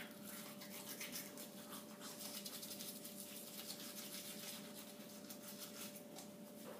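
Toothbrushes scrubbing teeth: faint, quick, scratchy rubbing made of many short back-and-forth strokes.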